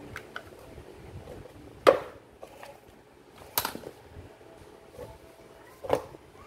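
Tools and hard parts being handled and set down: three sharp knocks spaced about two seconds apart, with fainter clicks and rattles between.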